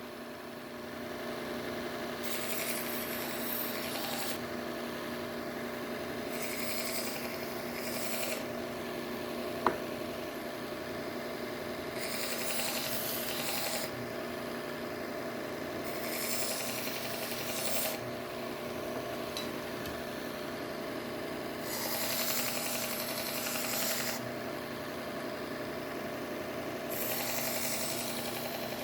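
Bucktool slow-speed belt grinder running steadily while a knife blade is drawn across its leather stropping belt in about six separate passes, each a hissing stroke of a second or two. There is one sharp click about ten seconds in.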